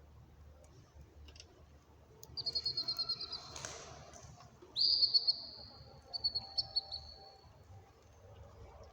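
A caged songbird singing: a quick trill of about ten high notes, then a loud whistled note held for about a second, then a few shorter notes.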